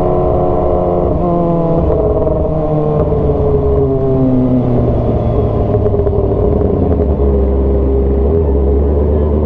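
Kawasaki ZX-25R's 250 cc inline-four engine running loud through a straight-piped GP-style exhaust as the bike slows down. Its note falls over the first few seconds, then holds steady at low revs.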